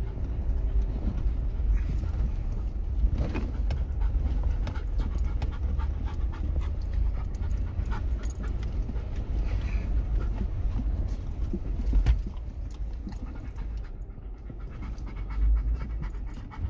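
A dog panting inside a vehicle's cabin, over the vehicle's steady low rumble on a rough, rutted dirt trail. Rattles and knocks come from the bumps, with louder jolts about three seconds in and again about twelve seconds in.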